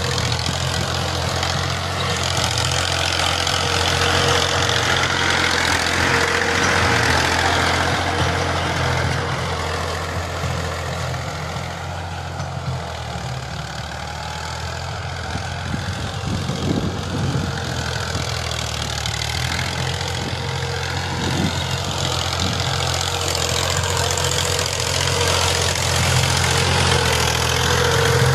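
Ghazi tractor's diesel engine running steadily under load while pulling a rotary tiller through the soil. It is a little quieter in the middle and louder near the end as the tractor comes close.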